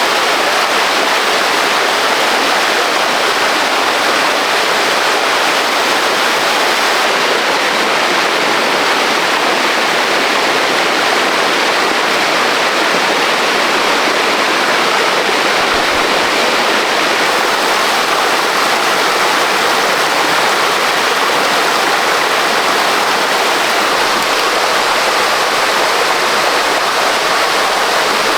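Fast-flowing stream water rushing steadily and loudly, a continuous unbroken rush.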